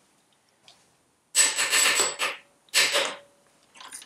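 Power impact gun with an 11 mm socket run in two bursts, one about a second long and a shorter one, undoing a fastener on an engine.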